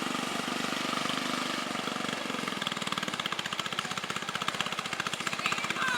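Small engine of a home-built '72 National off-roader running with a fast, even firing pulse. It is running without a throttle cable, which the riders say leaves it sluggish and low on power.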